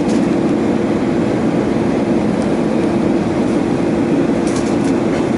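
Steady jet engine and airflow noise inside an airliner cabin on descent, an even, unbroken rush weighted toward the low end.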